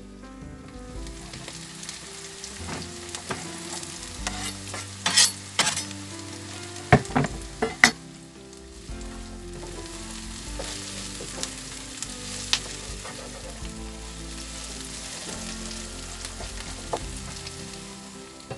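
Chopped onion sizzling in hot oil in a non-stick frying pan, stirred with a wooden spoon. There are a few sharp knocks of the spoon against the pan near the middle.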